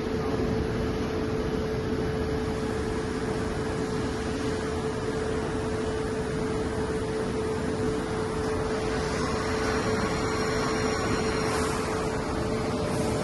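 Soraluce FP8000 mobile-column CNC milling machine running with a steady mechanical hum and a constant mid-pitched tone. From about nine seconds in, faint high whining tones join it for a couple of seconds.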